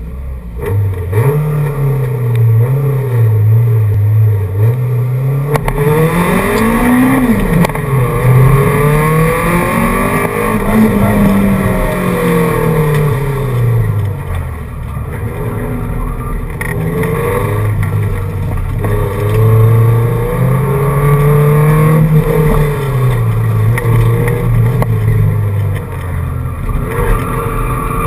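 CRVTEC-swapped Honda Civic EG's four-cylinder engine at race pace, heard from inside the caged cabin. The revs climb and fall again and again with throttle and gear changes, with a sharp climb and sudden drop about seven seconds in.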